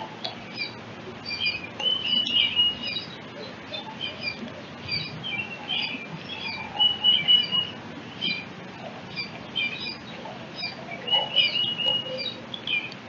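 Small songbirds chirping busily: quick high chirps several times a second, broken by three longer held notes spread through.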